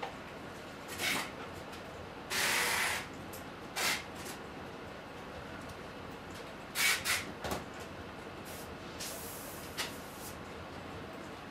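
Quiet open-plan office ambience: a steady hiss of computer noise under scattered desk sounds, short rustles and a few sharp clicks. The longest rustle lasts under a second about two and a half seconds in, and a small cluster comes near seven seconds.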